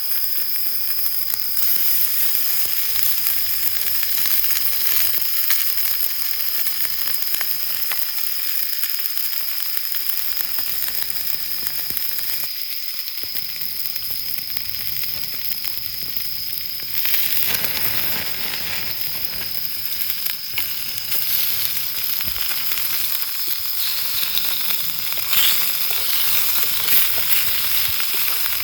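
Food sizzling as it fries in a pan over heat: a dense, steady hiss with a thin high tone running through it.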